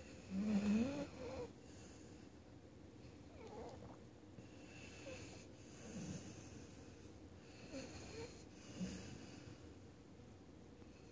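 Pit bull snoring in its sleep: a row of snoring breaths every second or two, the loudest about half a second in.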